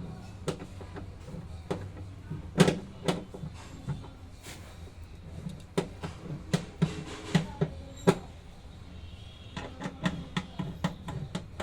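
IFB top-load washing machine running with a steady low hum and irregular clicking and knocking, which come faster near the end. This is the noise of a machine with a spin problem, which the repairer puts down to the gearbox or bearing.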